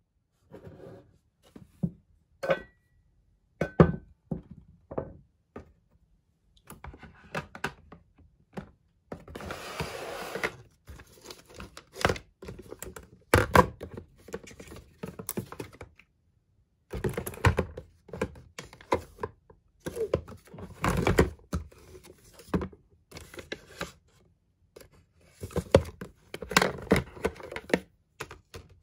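Hands handling and setting down small plastic and glass skincare bottles and jars in a plastic storage box: a string of light knocks and clicks, with stretches of rustling and sliding between them.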